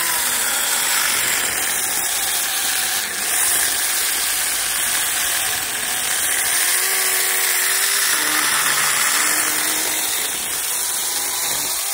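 Saker 20V cordless mini electric chainsaw running steadily as its chain cuts through a 4-inch plum tree limb, a continuous high-pitched motor whine and rasp of chain through wood.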